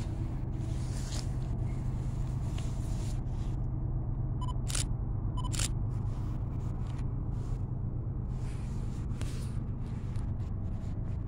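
Steady low outdoor rumble with a light hiss, and two short sharp clicks with a brief ringing tone about a second apart near the middle.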